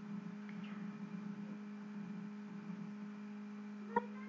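Steady low electrical hum, with a faint click near the end.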